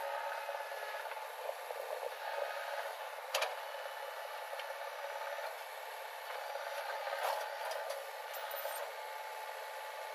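JCB 3DX backhoe loader's diesel engine running under hydraulic load as the backhoe arm digs and lifts a bucket of soil, with a sharp knock about three and a half seconds in and a few lighter clatters later.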